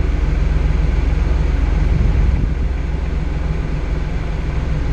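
Kubota tractor engine running steadily while its loader forks lower a lawn tractor, the sound easing slightly a little over two seconds in.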